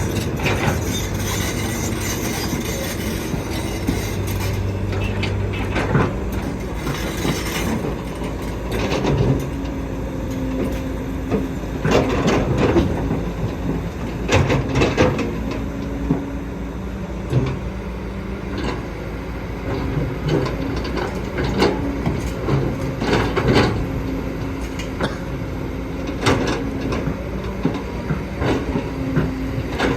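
Kobelco excavator working: its diesel engine running steadily, a hydraulic tone that comes and goes as it works, and repeated sharp clanks and knocks from the bucket and tracks.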